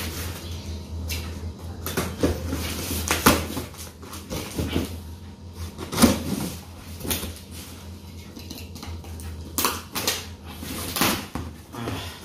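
Utility knife cutting through packing tape and cardboard on a shipping box, with irregular scrapes and knocks of the blade and the cardboard being handled.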